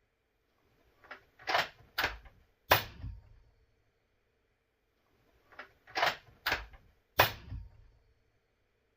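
Suppressed .300 Blackout bolt-action rifle, a Ruger American Gen 2 with a Dead Air Wolfman suppressor, firing 220 gr rounds: it is fired twice. Before each shot the bolt is worked with three quick metallic clacks. Each shot is a sharp, short report with a brief tail; the second comes about four and a half seconds after the first.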